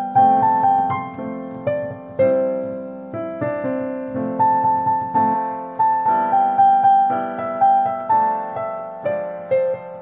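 Background piano music: a melody of struck notes, each fading after it is played, over lower chords.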